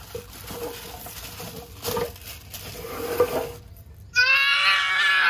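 A toddler's high, whining cry of protest: one loud held wail of about a second near the end, after faint shuffling and a couple of soft knocks.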